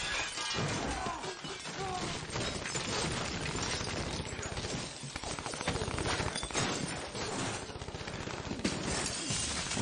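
Rapid gunfire with glass shattering and crashing impacts, a film shootout soundtrack.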